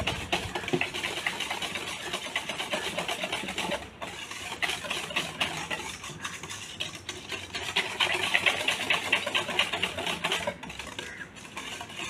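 Wire balloon whisk beaten fast by hand through thin liquid cake batter in a stainless steel bowl, the wires clicking rapidly against the bowl's sides, with a brief break about four seconds in.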